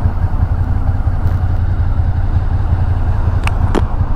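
Suzuki Gladius 645 cc V-twin motorcycle engine running steadily at low revs, a deep even pulse. Two short sharp clicks come near the end.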